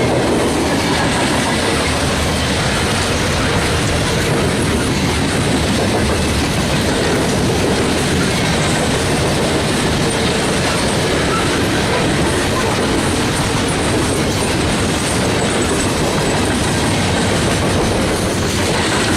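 Freight cars of a Norfolk Southern coal train rolling past steadily, their wheels clattering over the rail joints.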